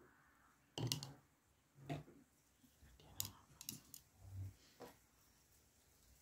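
A handful of light clicks and knocks, about five over four seconds, as painting tools are handled: a paintbrush dropped into a cup, its handle knocking against the side, and tools picked up and set down on the table.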